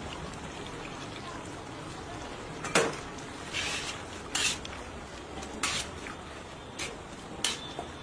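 A metal spatula scrapes and clanks against a large steel karahi wok as chicken and yogurt are stirred, about six strokes, the loudest about three seconds in. A steady sizzle from the cooking sauce runs underneath.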